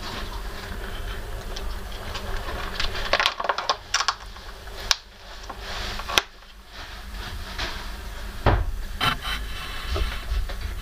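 Handling noises in a terrarium: scattered sharp clicks and knocks of a hand and feeding tool against a wooden feeding bowl, over a low steady hum.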